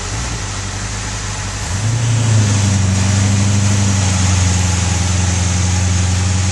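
Monster buggy's engine running; about two seconds in its note rises and grows louder, then holds steady as the buggy moves off and turns on gravel.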